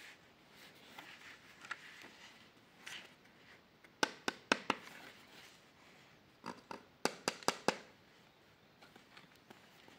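Hands handling a fabric Spider-Man mask: faint rubbing of the cloth, then sharp plastic clicks in two quick runs of about four, about four and seven seconds in, as a finger presses the mesh eye lens in its black plastic frame.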